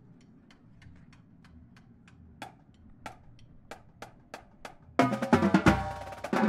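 Marching drumline: light, evenly spaced clicks about three a second, then about five seconds in the full line comes in loud, with snares, tenor drums and pitched bass drums.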